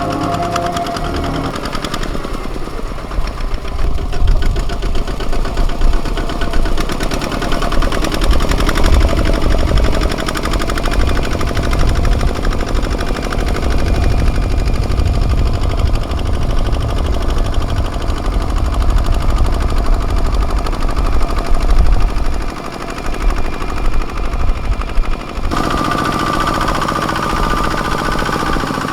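Kubota ZT155 walking tractor's single-cylinder diesel running hard while ploughing, with a rapid chattering exhaust beat. Near the end the sound changes abruptly to a steadier engine note with a clear tone.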